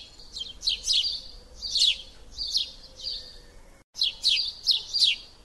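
Small songbirds chirping in quick, repeated short calls, with a brief break about four seconds in.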